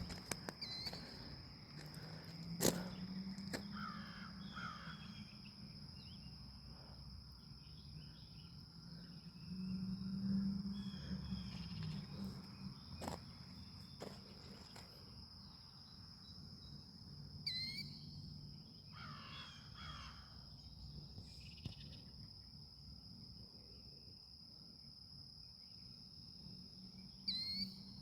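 Outdoor ambience: a steady high-pitched insect drone runs throughout, with scattered bird calls and a few sharp clicks. A low rumble swells about ten seconds in.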